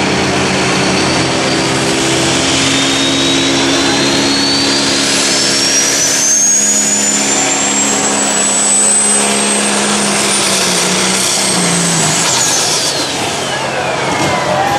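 Pro Stock pulling tractor's turbocharged diesel engine running hard under load down the track. A high turbo whine climbs slowly for about ten seconds, then falls away steeply about twelve seconds in as the engine comes down off full power.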